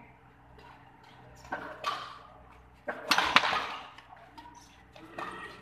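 Badminton rackets striking the shuttlecock during a rally: sharp hits about one and a half and two seconds in, the loudest hit and swish about three seconds in, and a lighter one near the end.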